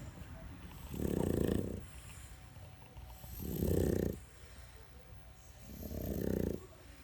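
A sleeping Boston terrier snoring: three raspy, rattling snores, roughly one every two and a half seconds, with quieter breathing in between.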